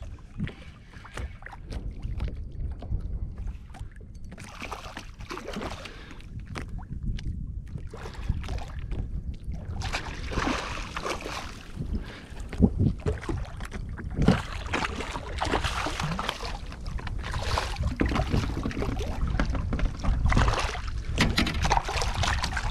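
Hooked redfish thrashing and splashing at the surface beside a fishing kayak, the splashing coming in bursts from about halfway through and heaviest near the end. A low wind rumble on the microphone runs underneath.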